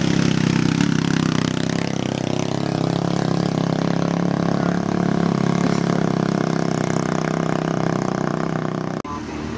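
Small motorcycle and scooter engines running steadily under load as they climb a steep hill. The sound cuts off abruptly near the end.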